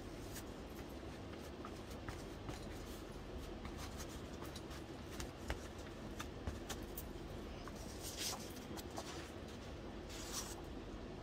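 Soft rustling and brushing of paper with light taps and clicks as book pages are laid and smoothed onto cardboard packaging, over a faint steady hum.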